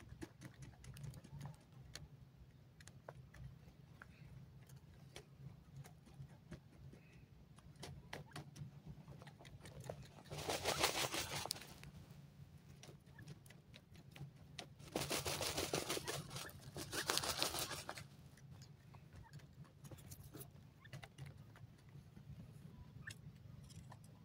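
Grey francolins dust-bathing in dry soil: scattered scratching and ticking of feathers and grit, with three louder bursts of rapid wing-fluttering in the dirt, about ten, fifteen and seventeen seconds in.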